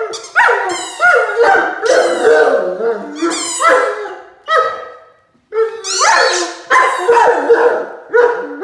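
Great Dane puppy howling and barking at his squeaky mouse toy: a loud run of pitched, bending calls, about a dozen in all, with a short break about five seconds in.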